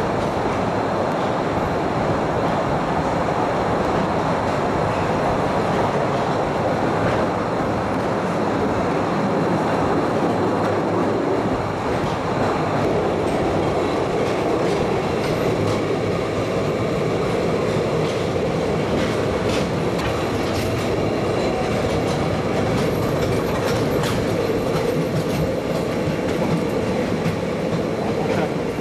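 Postojna Cave railway's open passenger cars running along the track, heard from aboard: a steady rolling rattle of wheels on rail. Scattered clicks come in the second half.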